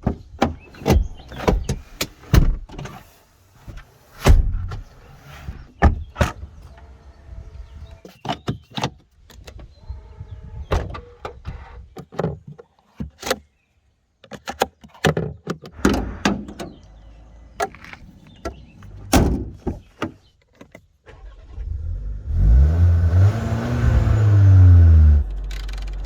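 Skoda Karoq facelift: a series of separate clicks and thuds from the car, then the 1.0 TSI engine starting about 22 seconds in, its revs flaring up and dropping back to a steady idle about three seconds later.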